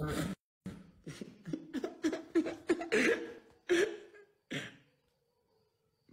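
People laughing: a run of short, quick bursts of laughter lasting about four seconds, dying away about a second before the end.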